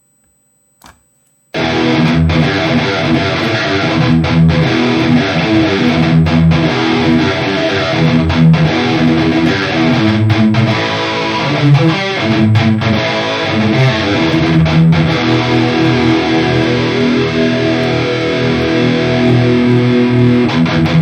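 Electric guitar played through a Valeton GP-200 modelling unit with its detune effect on, starting after a short click about a second and a half in and continuing loudly; the detune seems to be mono.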